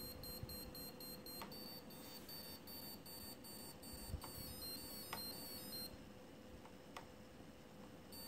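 Brushless motor beeping faintly with ESC tones: a run of short high beeps, several a second, then beeps stepping up and down in pitch that stop about six seconds in. They are the ESC's programming-mode tones, entered by accident.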